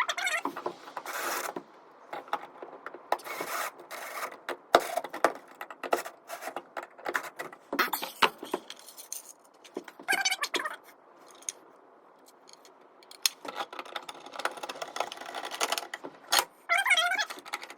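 Handling noises of small electrical hardware: irregular clicks, knocks, rattles and scrapes of metal and plastic parts being fitted and screwed together, with a few short ratcheting or whirring bursts.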